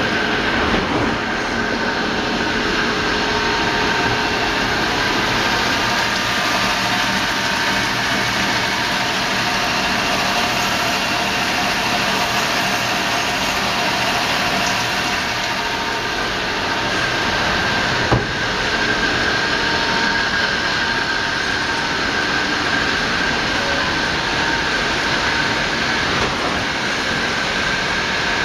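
Mori-Say TM 262 CNC multi-spindle lathe running while machining: a steady mechanical hiss and hum with a few constant whining tones, and a single sharp click a little past the middle.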